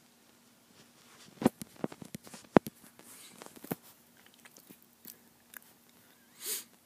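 A few scattered small clicks and taps, the sharpest about two and a half seconds in, over a faint steady hum.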